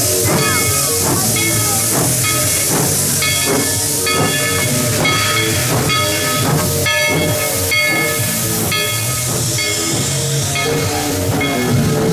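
Steam locomotive pulling out of the station, hissing steam with a steady run of exhaust chuffs, about three a second.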